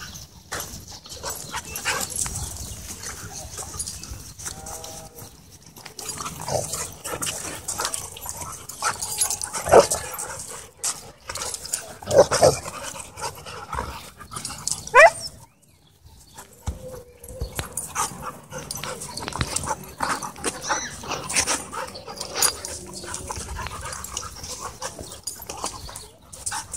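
Several dogs playing rough-and-tumble, with scuffling, panting and short vocal sounds; the loudest come about ten and twelve seconds in, and a brief rising cry about fifteen seconds in.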